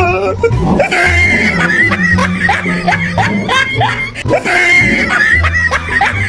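Background music with a steady beat, overlaid with repeated laughter-like sound-effect chirps.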